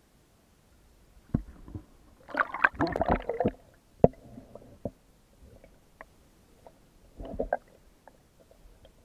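Water sloshing and gurgling against an underwater camera held below the sea surface, in uneven bursts, loudest a couple of seconds in and again near the end, with a sharp knock about four seconds in.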